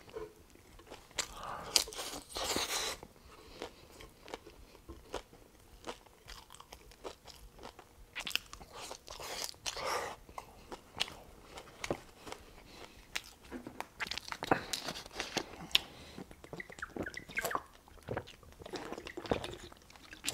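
A man chewing a mouthful of beef tacos, heard close on a clip-on microphone: irregular wet mouth clicks and smacks, with a louder stretch about two seconds in.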